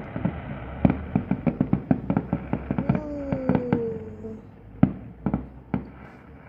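Fireworks shells bursting in a rapid run of sharp bangs, then a few scattered bangs that thin out and fade: the closing salvo of the display. A short falling tone sounds about three seconds in.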